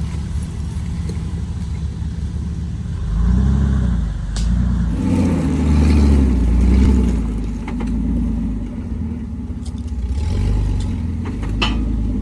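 Off-road 4x4's engine idling steadily, then revving up and down repeatedly from about three seconds in as it works over rocks, with a couple of sharp knocks.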